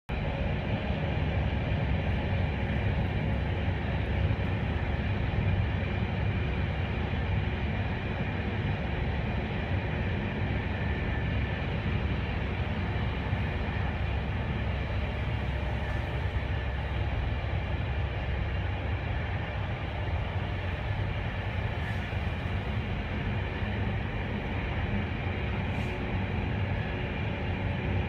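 Steady interior running noise of an Intercity Direct passenger coach travelling at speed: a deep, even rumble of wheels on rail, with a faint steady high whine.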